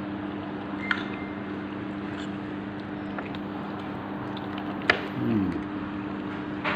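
Steady low hum of a restaurant dining room, with a few short sharp clicks, the loudest about five seconds in.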